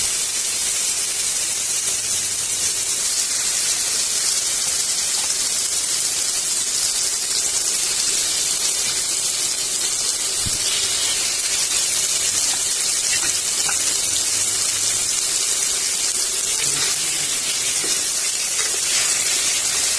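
Marinated prawns shallow-frying in hot oil in a pan: a loud, steady sizzle.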